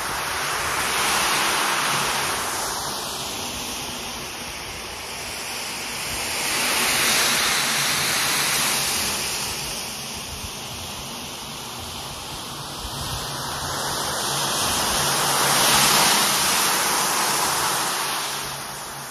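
Mercury rotary floor machine scrubbing a wet, foamy rug with its round shampoo brush: a steady motor hum under a hissing swish that swells and fades three times.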